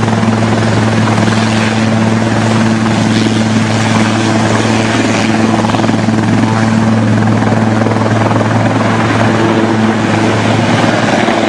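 Air ambulance helicopter hovering low and turning near the ground, its rotor and engines making a loud, steady noise with a low hum.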